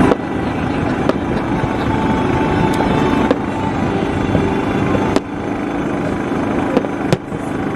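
Aerial fireworks shells bursting, several sharp reports a second or two apart, over a steady low rumble.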